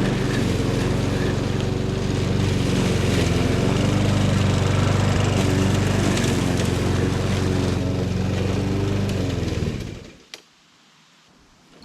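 Small lawn mower engine running steadily, then dying away about ten seconds in, followed by a single click.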